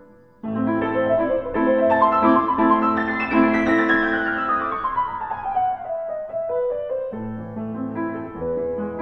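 Piano music. The notes come in about half a second in, with a run of notes falling in pitch through the middle.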